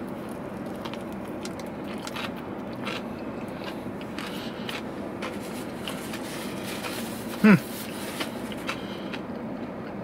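Close-up chewing of a fried chicken tender in a soft bun: faint wet mouth clicks and crackles over a steady low background hum. About seven and a half seconds in, a short falling "mm" from the eater is the loudest sound.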